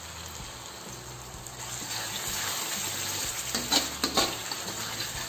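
Red spice paste, thinned with a little water, sizzling in a steel wok while a metal spatula stirs it. The sizzle grows louder about two seconds in, and two sharp spatula scrapes against the wok come about four seconds in.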